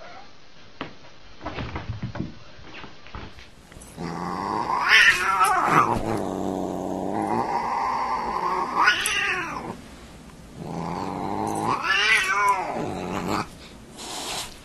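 Siamese cat yowling at a dog in long, drawn-out calls that sweep up and down in pitch, three of them starting about four seconds in; before that, a few soft knocks.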